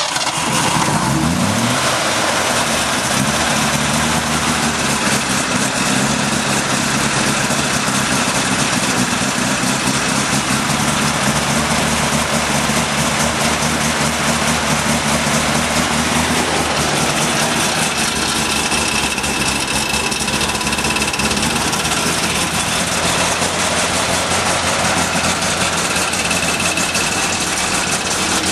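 1979 Ford F-100's 302 V8 catching about a second in, its pitch rising as it picks up, then running steadily with a slight change in note partway through. It is the first start in five years, and the owner thinks the carburetor float is probably stuck.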